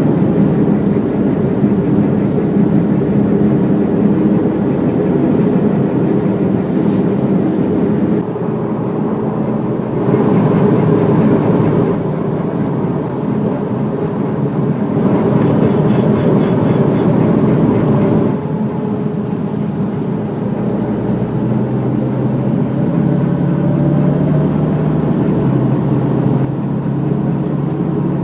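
Steady road and running noise of a 2014 Porsche Cayman 2.7 PDK being driven, its flat-six engine under it. About halfway through comes a rapid run of faint ticks, the intermittent noise that the owner fears is a fault in the new car.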